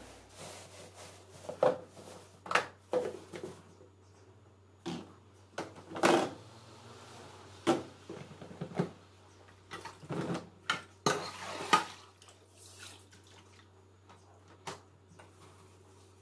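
Metal pots and pans clanking as they are picked up, set down and handled: about a dozen irregular knocks and clatters, then quieter handling noise near the end.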